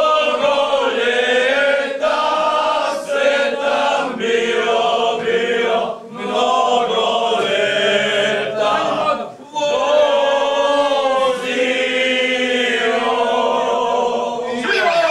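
A group of men singing a toasting song together without instruments, in long held notes, with short breaks between lines about six and nine and a half seconds in.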